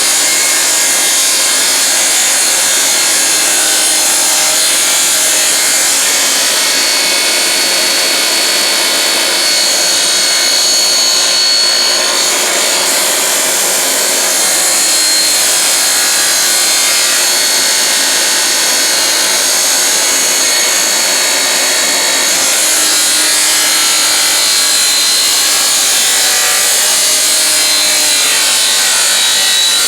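Shopsmith table saw running steadily and ripping a board lengthwise into strips, the blade whine shifting slightly as the load changes.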